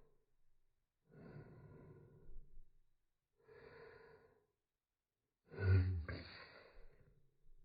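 A young woman's slowed-down sneeze: two breathy intake breaths as it builds, then the sneeze itself about five and a half seconds in, the loudest sound, trailing off over about a second.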